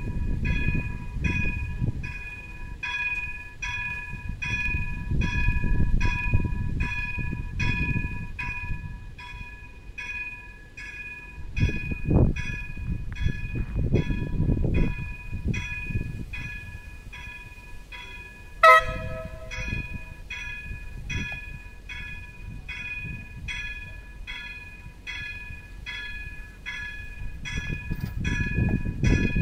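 A bell rings steadily, about two strokes a second, as a train approaches. About two-thirds of the way through, the Alstom Coradia iLint's horn gives one short blast, over a low rumble that swells and fades.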